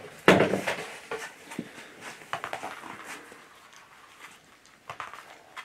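American bulldog puppy moving on a parquet floor: one loud sudden sound about a quarter second in, then scattered light clicks and scuffs.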